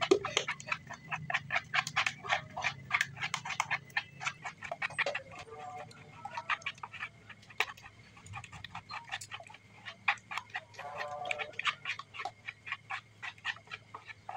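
A plastic spatula stirring thick bait batter in a plastic bowl, tapping and scraping against the bowl's side in a quick, even rhythm of about four clicks a second.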